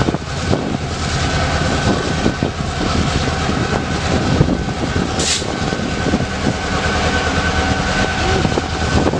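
Freight train passing close by: a steady, loud rumble and clatter of rolling cars, with a thin high squeal and a brief hiss about five seconds in.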